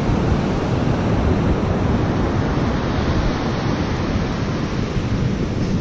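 Big ocean surf breaking in a steady wash, with wind buffeting the microphone.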